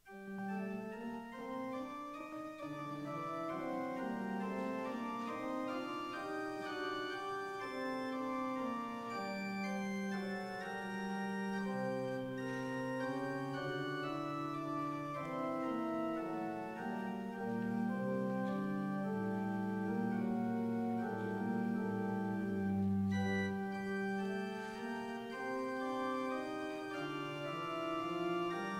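Organ music: slow, sustained chords over a moving bass line, starting suddenly out of silence, played as prelude before the worship service begins.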